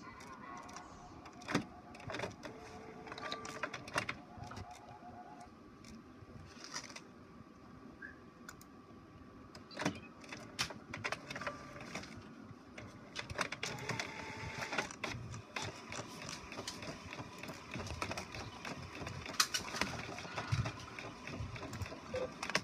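HP Officejet 4500 inkjet all-in-one printer running a print job: small motors whir in short runs, with many clicks and clunks from the carriage and paper feed.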